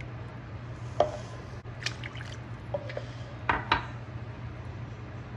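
Water poured into a pan of rice and tomato broth, then several sharp knocks of a ladle against the pan as the liquid is stirred, over a steady low hum.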